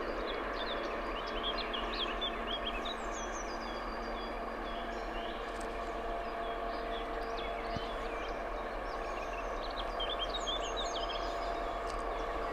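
Songbirds chirping in two spells, near the start and again about ten seconds in, over the steady distant drone of an approaching DB class 232 'Ludmilla' diesel locomotive, with a few steady humming tones in it.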